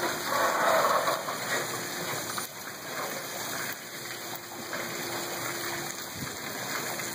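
Water washing and splashing at the foot of a boat ramp, stirred up as a boat is hauled out on its trailer. It is loudest for the first second or so, then settles to a steady wash.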